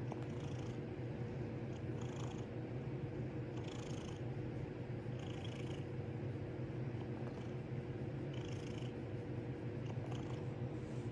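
Domestic cat purring steadily while being stroked, a continuous low rumble with soft rustles every second or two.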